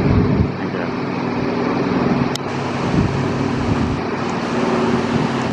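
Twin Pratt & Whitney R-1830 Twin Wasp radial engines of a Douglas C-47 Dakota flying overhead, a steady drone.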